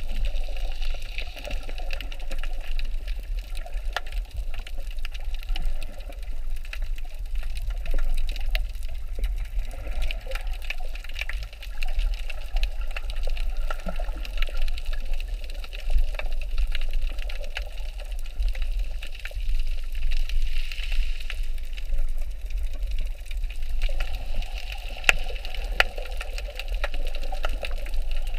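Underwater reef ambience: a steady, muffled low rumble of moving water with a continuous scatter of sharp small clicks and crackles.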